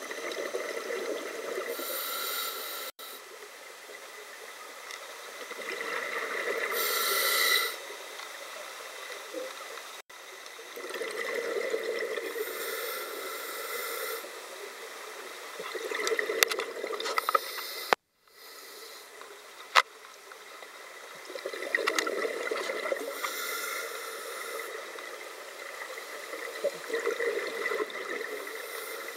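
Scuba diver breathing through a regulator underwater, with a hiss on each inhale and a gush of exhaled bubbles, in a steady cycle about every five seconds.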